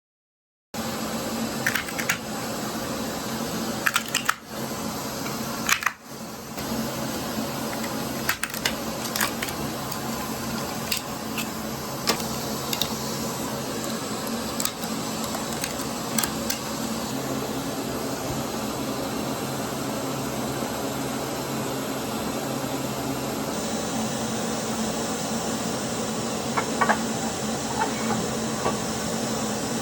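A shop machine running steadily, with scattered clicks and knocks over it. The hiss changes character about two thirds of the way through.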